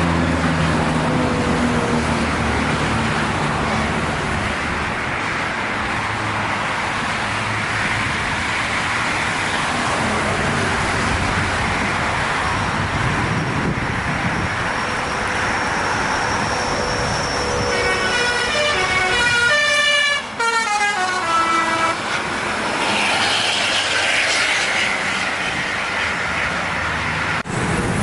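Steady road traffic from passing vehicles, then, about two-thirds of the way through, a bus's telolet horn (a multi-tone musical air horn) plays a quick run of changing notes for about four seconds.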